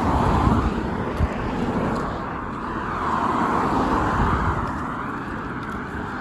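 Passing vehicles: a steady rush of traffic noise that swells, eases and swells again, with deep rumbling underneath.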